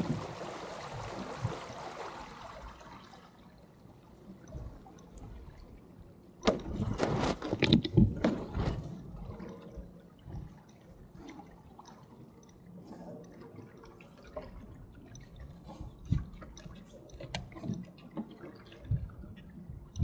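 Water lapping and trickling against the hull and rudder of a small Sunfish sailboat moving slowly. A steady rush fades over the first three seconds, a louder spell of splashing and knocks comes about six to nine seconds in, and scattered small drips and ticks follow.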